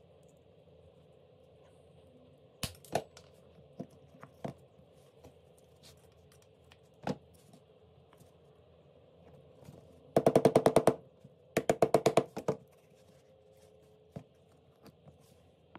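Small wooden box and its metal hinge pin being worked by hand: scattered clicks and knocks, then two quick runs of sharp taps about ten a second, each lasting about a second, which are the loudest sounds.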